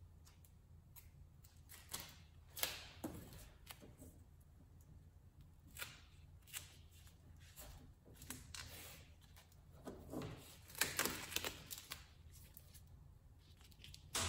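Duct tape being pulled, torn and wrapped around the end of a tent pole and hose piece: faint scattered rustles and ticks of tape and handling, with the loudest tape crackle about ten seconds in.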